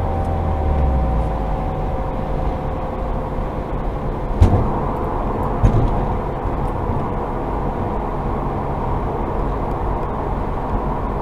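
Subaru WRX rolling along with a steady drone, like a plane flying overhead, that follows wheel speed and not the engine. It appeared after a hard braking event. Engine tones fade out in the first second or two as the car coasts, and two sharp knocks come about a second apart near the middle.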